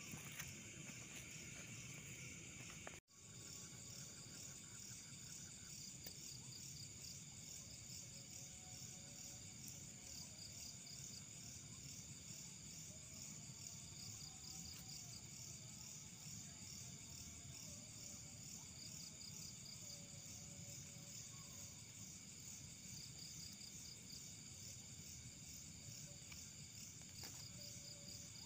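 Night insects chirping in a steady, high-pitched pulsing chorus. The sound cuts out for an instant about three seconds in.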